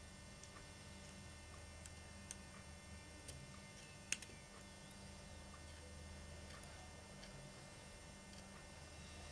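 Quiet, steady electrical hum with a few small, sharp clicks, the loudest about four seconds in: a plastic pry tool clicking against the casing of a second-generation iPod nano as its glued top cover is worked loose.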